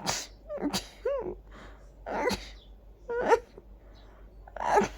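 A person in a sneezing fit: about five big sneezes in quick succession, roughly a second apart, with short voiced catching breaths between them.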